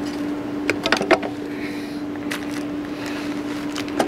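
Handling noise as an opened CB radio is moved about on a bench: a quick cluster of light clicks and knocks about a second in, then single clicks twice more, over a steady electrical hum.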